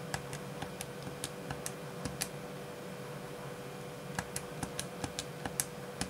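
Keys of a 12-button security keypad being pressed, sharp plastic clicks in two quick runs of about ten presses each, with a pause of nearly two seconds between: wrong PIN codes being keyed in one after another, repeated incorrect entries that the keypad counts toward a lockout.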